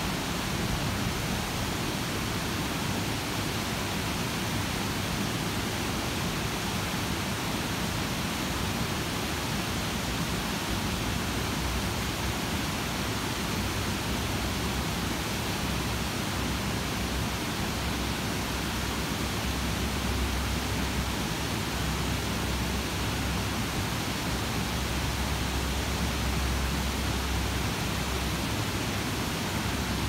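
Water pouring down the many tiers of a large terraced concrete waterfall fountain into the pool below. It makes a steady, even rush with no breaks.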